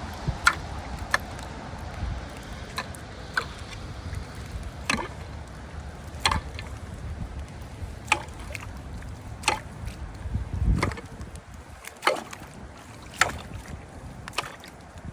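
Rake working in a flooded drain: irregular sharp knocks and scrapes, about one a second, over water sloshing and a low rumble.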